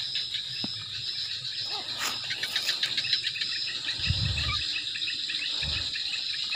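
Night chorus of crickets and other insects: a steady high chirring with fast pulsing trills, and a low dull thump about four seconds in.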